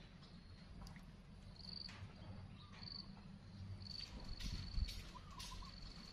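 Faint outdoor ambience: a short, thin, high-pitched chirp repeating about once a second, with a brief wavering call and a few light clicks near the end.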